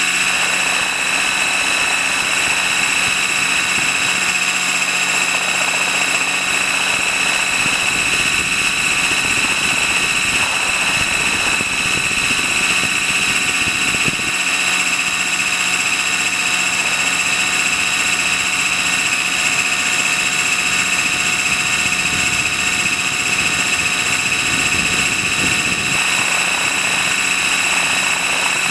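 Trex 600 RC helicopter in flight, heard from a camera mounted on its own landing skid: a steady high whine from the drive and main rotor over constant rotor noise, holding even throughout.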